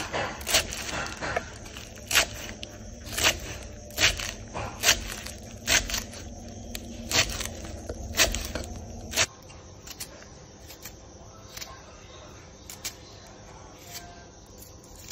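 Kitchen knife chopping green herbs on a wooden cutting board: sharp knocks of the blade hitting the board, irregular and about one a second. About nine seconds in the knocks stop and it goes quieter, with only a few faint ticks.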